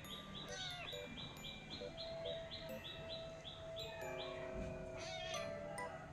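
Background music of soft chime notes with a looping bird-like chirp repeating about three times a second, and a couple of sweeping glides.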